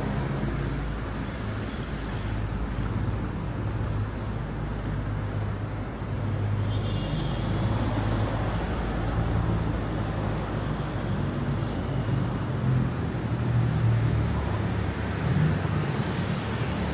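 Steady city road traffic: a continuous low rumble and hum of engines and tyres from the street below.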